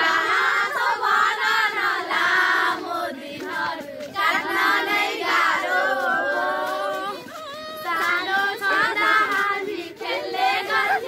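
A group of girls singing a song together in young voices, with short breaks between phrases.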